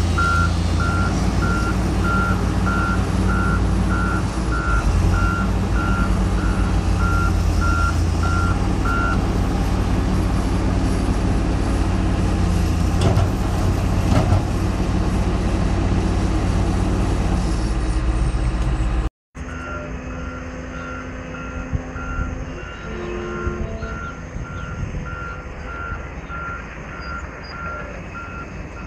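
Heavy diesel engine of a Volvo motor grader running loud and steady while its reversing alarm beeps at an even pace, the beeping stopping about nine seconds in. About nineteen seconds in the sound cuts off abruptly to a quieter engine with the same kind of reversing beeps starting again.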